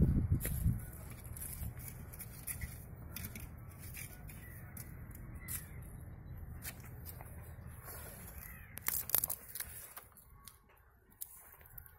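Palmyra palm sprouts knocking and clattering as they are stacked by hand on a spread of palm leaves: heavier knocks at the start, scattered light clicks, and a cluster of sharp clicks about nine seconds in. Crows caw in the background.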